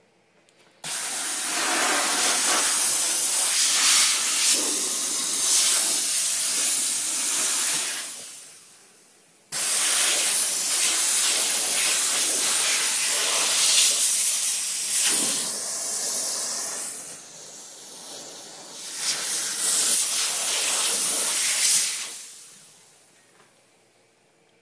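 Enrich Fogger 6 bed bug sprayer hissing out its spray in two long bursts. The first starts about a second in and lasts about seven seconds. The second starts suddenly near the ten-second mark and runs about twelve seconds, dropping briefly partway through.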